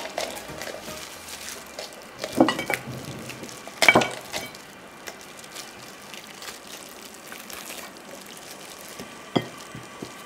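Gloved hands tearing a cooked whole chicken apart: wet tearing and crackling of skin, meat and joints, with two louder rips about two and a half and four seconds in. A short sharp knock comes near the end.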